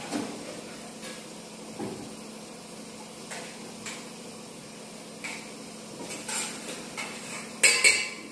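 Stainless-steel bowls and plates clinking and knocking as they are picked up and set down, a few scattered strikes with the loudest, ringing clatter near the end. A faint steady hum runs underneath.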